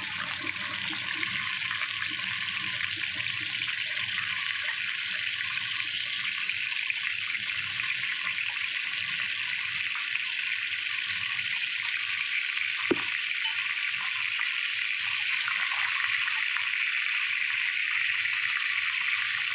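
Fish pieces frying in hot oil in a wok: a steady sizzle that grows a little louder toward the end, with a single sharp click about 13 seconds in.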